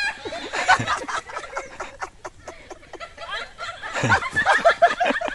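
People laughing in short bouts, heaviest about four seconds in.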